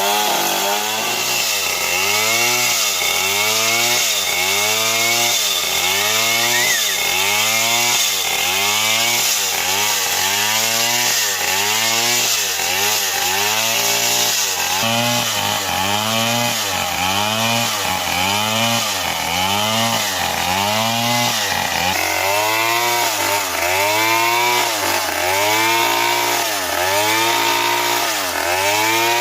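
STIHL MS 070 chainsaw's large single-cylinder two-stroke engine running under load as it cuts wood, its pitch dipping and recovering in a steady rhythm about once a second.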